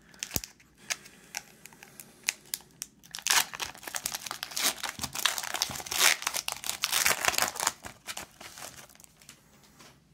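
Foil Pokémon booster pack wrapper being torn open and crinkled as the cards are slid out: scattered sharp crackles at first, then dense crinkling from about three seconds in, thinning out near the end.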